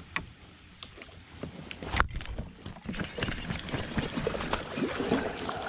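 Fishing sounds from a kayak: one sharp knock about two seconds in, then a busy run of small knocks and water noise.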